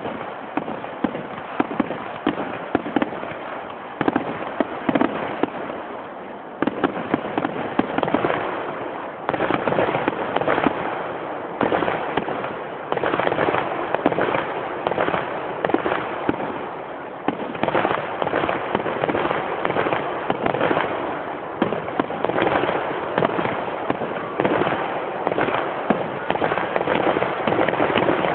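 Fireworks display: a continuous barrage of overlapping bangs and crackles, growing denser about a third of the way in.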